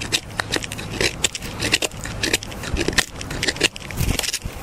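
D2-steel bushcraft knife carving hard, knotty Osage orange wood: a quick, irregular run of short scraping cuts as curls are shaved off the stick, about four or five strokes a second. A dull thump comes about four seconds in.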